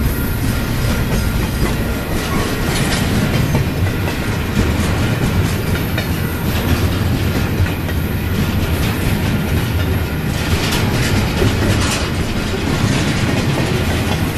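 Double-stack intermodal container train's well cars rolling past, a steady rumble of wheels on rail with scattered clacks.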